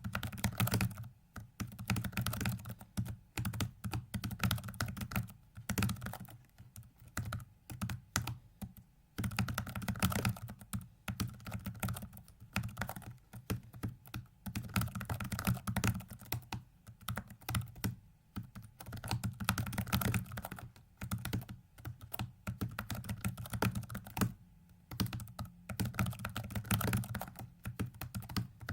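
Computer keyboard being typed on rapidly in flurries of keystrokes with brief pauses, the key presses of a fast 4x4x4x4 hypercube solve controlled from the keyboard.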